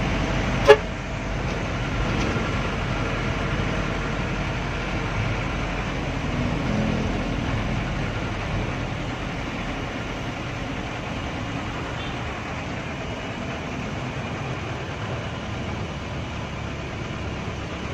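Mitsubishi 120 PS bus engine and road noise heard from inside the bus cabin, running steadily while driving, with one short, sharp horn toot about a second in.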